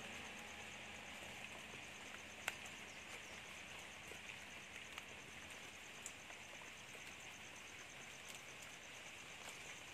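Faint outdoor ambience with an insect's steady, evenly pulsed high trill. A few light snaps come through as jackfruit leaves are plucked by hand, the sharpest about two and a half seconds in.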